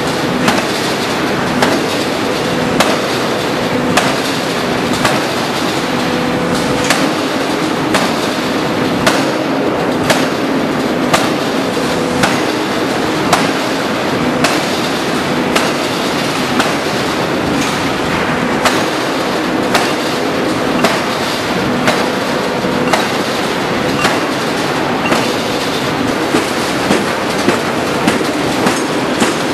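Anyang hydraulic open-die forging hammer working a red-hot axle forging, striking about once a second with sharp blows over a steady din and low hum. The blows come faster near the end.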